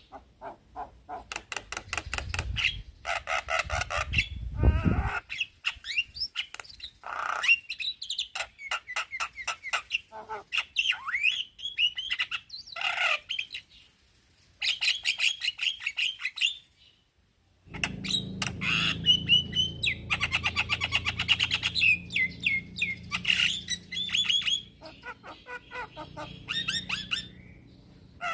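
Male Javan myna singing: rapid runs of harsh chattering clicks and rattles mixed with short whistled notes. There are brief pauses about 14 and 17 seconds in.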